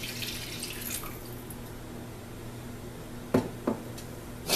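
Water poured from a glass measuring cup into a hot stainless skillet of browning turkey neck and giblets, the stream tapering off about a second in, then the liquid bubbling quietly in the pan. Near the end the glass cup is set down on the counter with a few sharp knocks.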